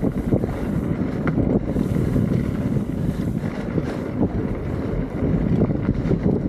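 Steady wind rumble on the microphone of a mountain biker riding down a dirt trail. It is mixed with many small knocks and rattles from the bike rolling over rough ground.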